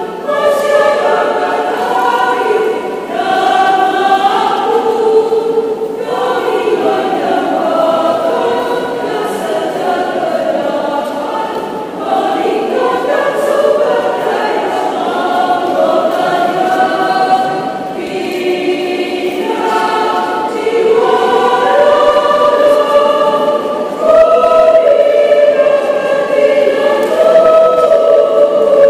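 Women's choir singing in parts in a series of phrases, growing louder near the end.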